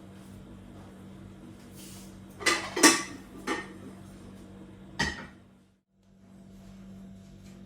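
Kitchenware being handled: four sharp clinks and knocks with a short ring, the loudest about three seconds in, over a steady low hum. The sound cuts out briefly about six seconds in.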